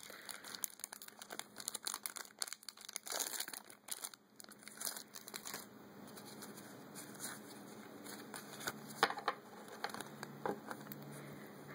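Foil wrapper of a Pokémon trading card booster pack crinkling and tearing as it is ripped open, for about the first five seconds. After that, only faint rustling and a few soft clicks.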